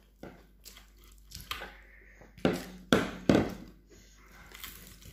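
A person chewing and smacking her lips while eating grilled tilapia with her fingers. There are a few louder smacks close together in the middle.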